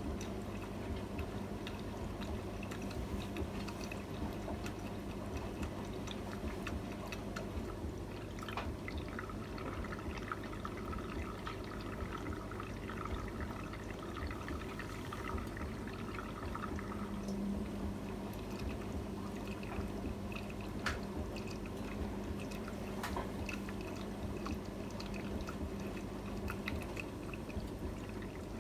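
AEG Öko-Lavamat 73749 Exclusiv washing machine mid-cycle: water pouring and splashing inside the machine, over a steady low hum and a few small clicks.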